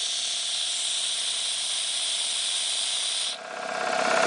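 Steady hiss of compressed air escaping at an Ingersoll Rand 60-gallon air compressor with its motor stopped. The hiss cuts off suddenly after about three seconds, and the compressor motor's running sound comes back, rising.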